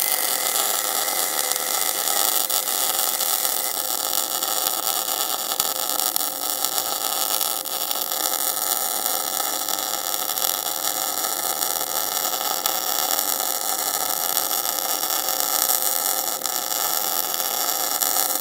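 MIG welding arc from a Dynaweld MIG 250 inverter welder, running a continuous bead on steel: a steady crackling hiss.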